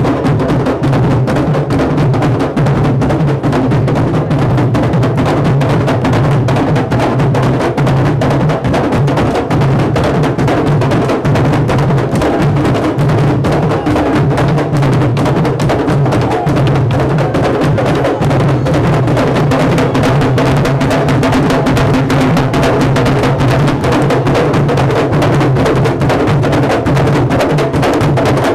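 A cuerda of candombe drums (chico, repique and piano) playing together in a dense, unbroken rhythm.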